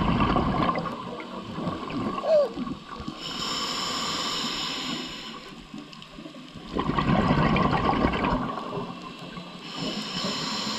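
Scuba diver breathing through a regulator underwater: a gurgling rush of exhaled bubbles at the start and again about seven seconds in, alternating with the hiss of the regulator on each inhale.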